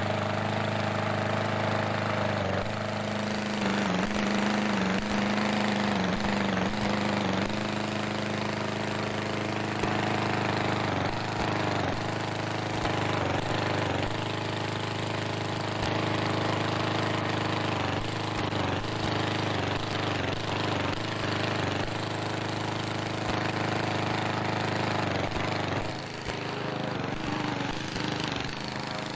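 Gasoline-engine balloon inflator fan running steadily, blowing air into a hot air balloon envelope during cold inflation. Its level drops slightly near the end.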